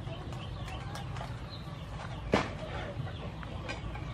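Chickens clucking softly as they forage, over a steady low background rumble, with one short sharp sound a little over two seconds in.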